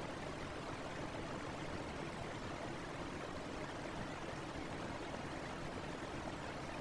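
Electric fan running steadily, played back at a raised pitch: an even rushing air noise with no change in level.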